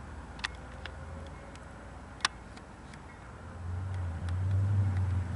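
A motor vehicle's low engine rumble, building up loudly about three and a half seconds in, with a few sharp clicks scattered through it.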